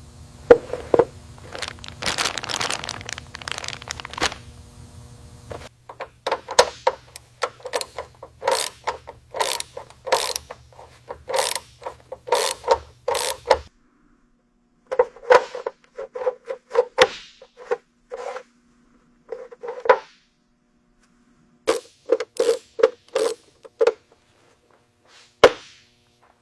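A series of short, sharp clicks or knocks, roughly one to two a second, each with the same ringing pitch. There is a burst of rushing, scraping noise a couple of seconds in, and a low steady hum under the first half that stops about halfway through.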